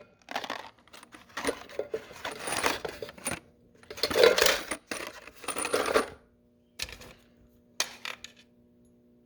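Loose nails, staples and screws clinking and rattling in a coffee can as it is handled: about six seconds of clatter, then a couple of single clicks.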